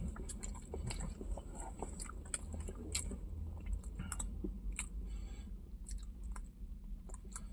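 Close-up chewing of a chicken burger: irregular soft crunches and wet mouth clicks as a person chews.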